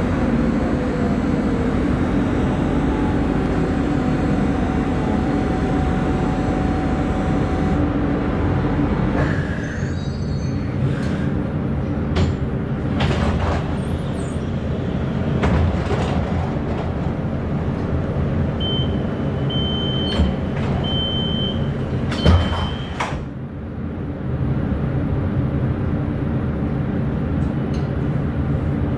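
Duewag B80D light-rail car running, then a quieter stretch with scattered clicks and knocks. About two-thirds through, four short high beeps sound, the door-closing warning, with a sharp knock as the sliding doors shut near the last beep. The steady running noise then picks up again.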